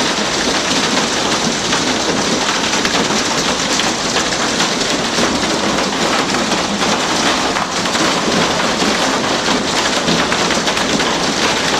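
Hail and rain pelting a glassed-in porch: a dense, steady rattle of countless small ice impacts on the glass and roof.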